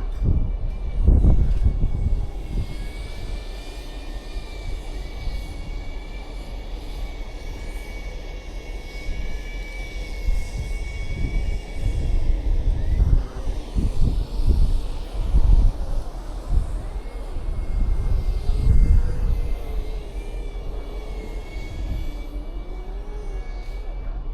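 Steady mechanical hum with a high, even whine, typical of a cruise ship's deck ventilation machinery, with irregular low rumbling thumps.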